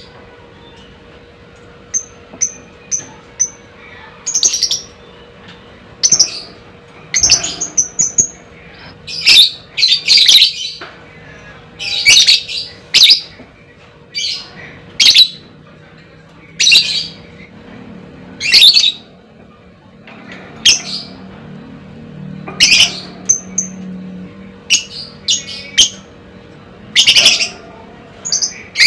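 Lovebird calling: short, shrill chirps and squawks in separate bursts every second or so, with a quick string of four short notes about two seconds in.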